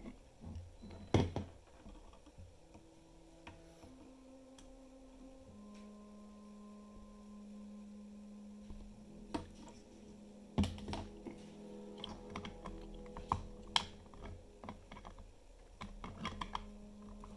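Hard 3D-printed PLA case parts clicking and knocking against each other as they are handled and pressed together, in scattered taps with clusters near the start, in the middle and near the end. Soft background music with long held notes plays underneath.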